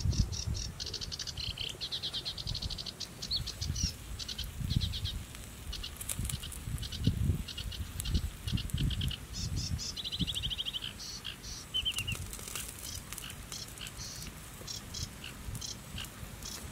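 Small birds chirping and giving rapid trills over and over, with an irregular low rumble underneath.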